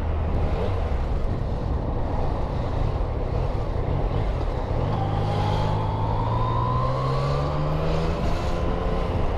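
Yamaha MT-09's three-cylinder engine running under a steady rush of wind and road noise; about halfway through its note climbs steadily for some three seconds as the bike accelerates, then holds.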